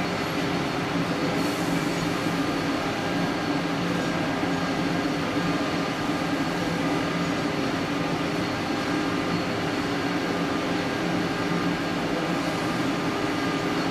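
Steady hum of a car assembly plant floor: machinery and ventilation noise with a few constant tones underneath, even throughout with no distinct events.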